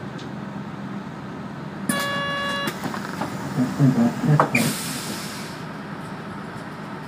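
Inside a city bus: the engine runs steadily while a buzzer sounds for just under a second about two seconds in. Several clunks follow, then a burst of compressed-air hiss.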